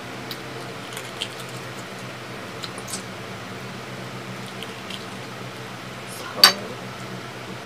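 Close-up eating sounds: small mouth smacks and clicks as balut and fried chicken feet are eaten by hand, with one loud sharp click about six and a half seconds in, over a steady low hum.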